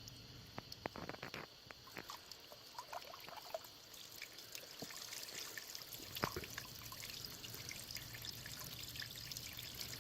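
Faint water trickling and pouring, building up behind a small rock dam. A few light clicks and splashes come in the first few seconds, and the flow grows a little fuller after about four seconds.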